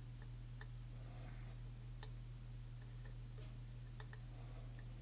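Faint, scattered clicks of a lock pick working the pins of an EVVA challenge lock, a few clicks over several seconds, over a steady low hum.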